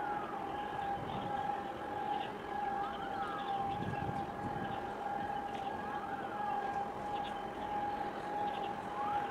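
An electronic siren-like alarm: a steady high tone with a short rising-and-falling wail about every three seconds, over a low rumble.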